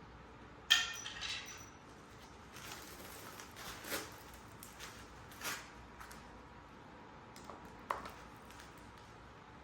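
A sharp metallic clink with a brief ring, then several softer clicks and handling noises, and another sharp click near the end: small hard objects being handled and set down.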